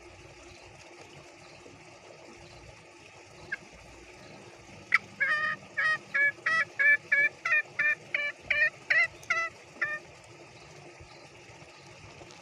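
Green junglefowl giving its 'ngekek' cackle, a series of about a dozen short, sharp notes at roughly two to three a second lasting about five seconds: a call to other junglefowl, which usually answer it.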